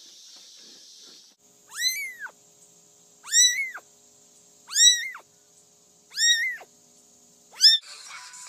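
A cat meowing five times, high-pitched calls about a second and a half apart, each rising and then falling in pitch; the last one is shorter.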